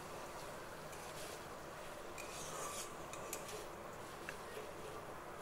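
Metal spatula scraping and stirring chopped banana stem around a wok, with a few faint clinks against the pan.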